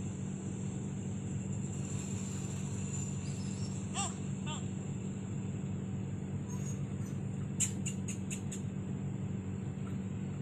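Steady background drone: a low hum under a constant high-pitched whine. Two short squeaky chirps come about four seconds in, and a quick run of about five clicks a little before eight seconds.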